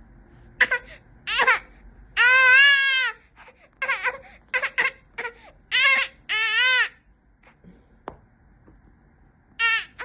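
Baby crying and fussing in high-pitched wails broken by pauses: short cries, a long wail about two seconds in, more around six seconds, and one last short cry near the end. It is protest crying at being refused the remote control.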